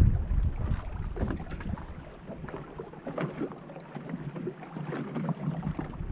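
Water slapping and lapping against the hull of a small drifting boat, with wind buffeting the microphone that drops away in the middle and picks up again near the end.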